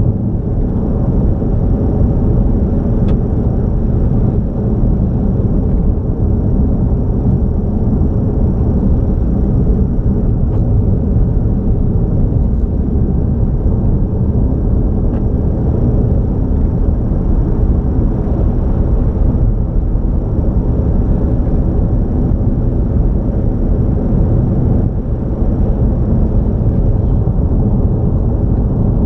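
A car driving at highway speed, with a steady rumble of road and engine noise.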